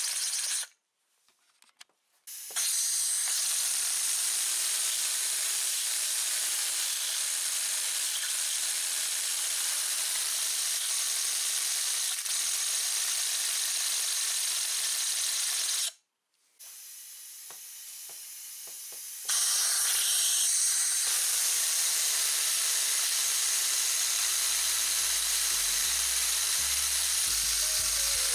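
3D-printed two-rotor rotary air engine running on compressed air, with a loud, steady hiss of air rushing out through its copper-pipe exhaust. The air is cut off briefly about a second in and again around sixteen seconds in, then starts again. Background music comes in near the end.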